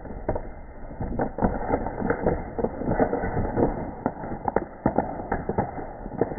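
An animal eating shredded cheese: quick, irregular chewing and smacking clicks, several a second.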